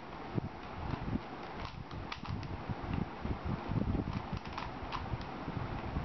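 A plastic 3x3 Rubik's Cube being turned quickly by hand: irregular clicks and clacks of the layers snapping round, several a second, with low knocks from handling, over a steady hiss.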